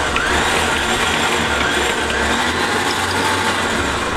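Front-bumper 12-volt electric winch running under power, its motor and gear train spooling the cable with a steady mechanical whir. It is running free, with no load on the hook, on its first test after wiring.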